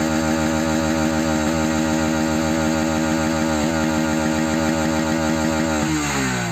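Bajaj Pulsar NS160 motorcycle's single-cylinder engine held at high revs, steady, then the revs fall away near the end as the throttle is released.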